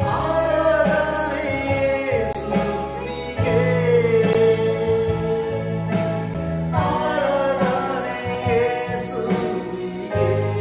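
A man singing a Kannada Christian worship song over steady instrumental backing, with a long held note in the middle.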